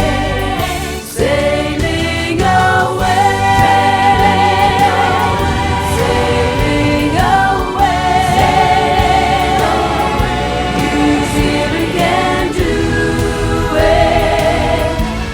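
Background song with choir singing over a steady beat.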